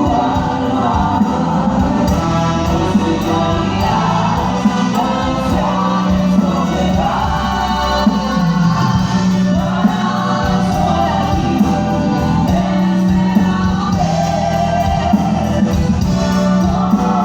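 Music with several voices singing together over a steady low held note, with short sharp beats recurring throughout.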